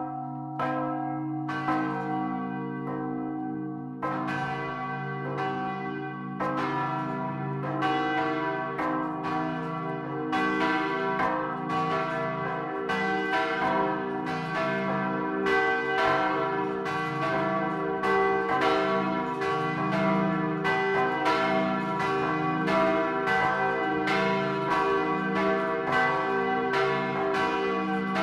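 Large swinging bronze church bells ringing close up in the belfry. These are the tower's 1525 great bell (4,300 kg, tuned c′) and the 1983 bells Mária (e′) and Jozef (g′). The strikes are regular and overlap, and more bells join about four and six seconds in, filling out into a full peal.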